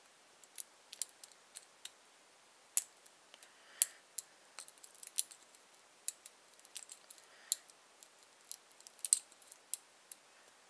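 Picking a Master Lock 140 brass padlock with a Southord jackknife pick and tensioner: irregular sharp metallic clicks and ticks as the pick works the pins in the keyway, a few much louder than the rest.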